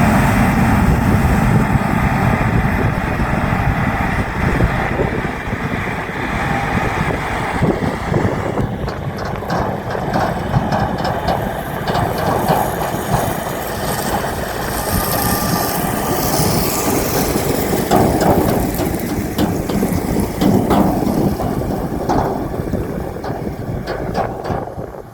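John Deere combine harvester running steadily while cutting wheat: a continuous low engine and machinery noise with scattered short rattles and clicks.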